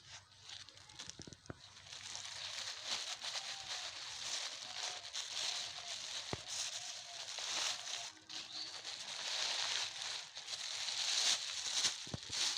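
Old plastic and cloth rubbish crinkling and rustling as it is handled, with many small crackles throughout.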